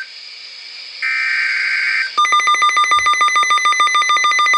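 Emergency Alert System alert audio: a harsh digital data burst of the SAME header about a second in, then from about two seconds in a loud, rapidly pulsing two-tone attention alarm.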